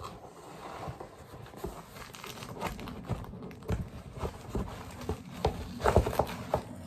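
Keyboard packaging being unwrapped and handled: crinkling and tearing of the wrapping with scattered knocks, the loudest about six seconds in.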